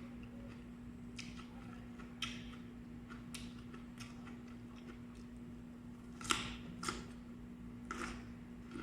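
Crunching and chewing of raw vegetables (lettuce and broccoli): a string of crisp, irregular crunches, the loudest about six and seven seconds in, over a steady low hum.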